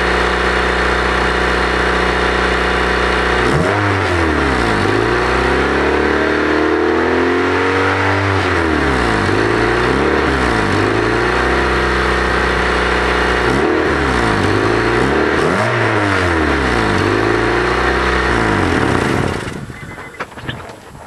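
Honda Civic engine with a holed, leaking exhaust, idling and then revved up and down repeatedly, the exhaust note rising and falling with each rev. The engine shuts off near the end.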